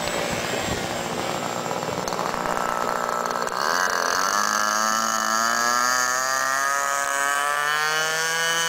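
A radio-controlled model tow plane's engine and propeller run at low revs. About three and a half seconds in, the engine throttles up with a quickly rising pitch and holds high revs for the takeoff run, its pitch still creeping up.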